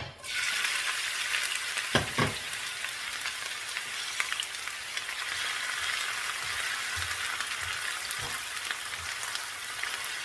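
Onions dropped into hot oil with dried chillies in a frying pan, setting off a loud, steady sizzle. A couple of sharp knocks come about two seconds in, with a few fainter ones later.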